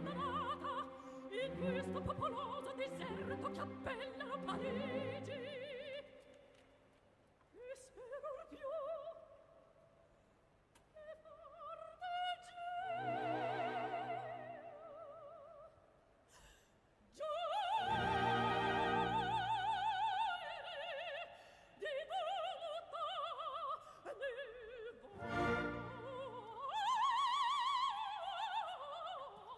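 Operatic singing in several short recorded excerpts, one after another with brief gaps between them. The voice sings with a wide vibrato.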